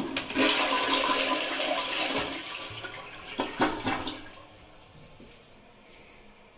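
Sterling Windham toilet flushing: a loud rush of water swirling down the bowl that dies away after about four seconds to a faint hiss.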